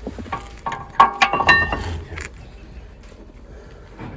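Brake parts being handled, giving a quick run of clicks and light metallic clinks with a short ringing, mostly in the first two seconds.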